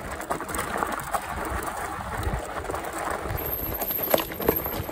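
E-bike riding over a rough dirt trail strewn with dry leaves: tyres crackling over leaves and ground, with irregular knocks and rattles from the bike jolting over bumps, and two sharper knocks near the end.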